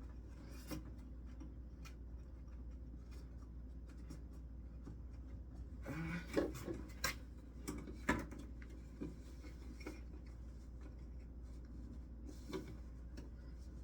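Hands working a wire through an animatronic's latex neck piece: soft rubbing and scraping, with a cluster of sharp clicks and knocks about six to eight seconds in, over a steady low hum.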